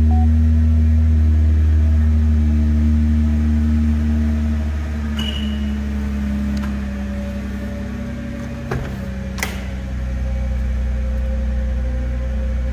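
Nissan GT-R R35's twin-turbo V6 idling steadily after a remote start, a low even drone whose idle speed eases down slightly partway through. A couple of sharp clicks come near the middle.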